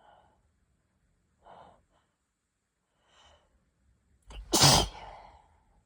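A person takes a few quiet breaths, then gives one loud sneeze about four and a half seconds in. It is a tickly sneeze at the start of a cold.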